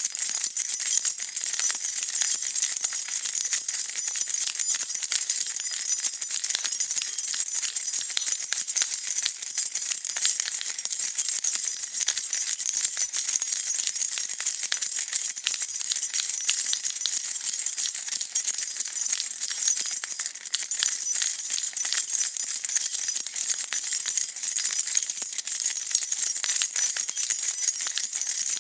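A bunch of metal keys jingling continuously as they are shaken, a dense, bright rattle of small clinks.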